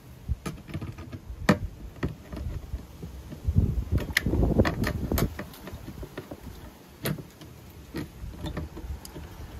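A chrome saddlebag rail being handled and fitted onto screw posts on a plastic motorcycle saddlebag lid: scattered clicks and knocks of metal against plastic. A louder stretch of handling and rubbing comes about halfway through.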